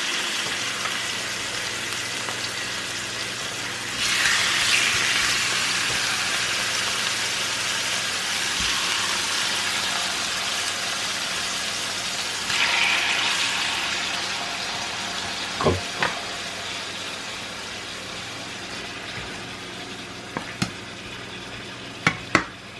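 Chicken thighs frying in hot oil in a large skillet: a steady sizzle that swells twice, about four and about twelve seconds in, then slowly fades. A few sharp taps sound near the end.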